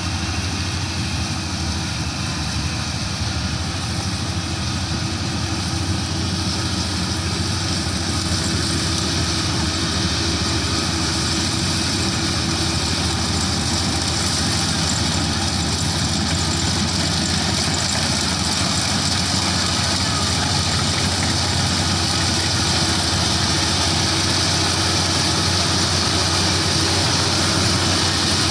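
Kubota DC-35 mini rice combine harvester running steadily as it harvests, its diesel engine and threshing machinery making a constant hum. It grows a little louder toward the end as the machine comes closer.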